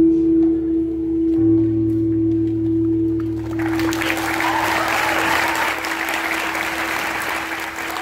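The last sustained chord of an electric guitar ringing out, shifting to a new chord about a second and a half in and slowly fading. An audience begins applauding about three and a half seconds in and keeps clapping as the chord dies away.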